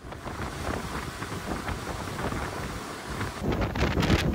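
Wind rushing and buffeting on the camera microphone, with an abrupt change in the noise about three and a half seconds in.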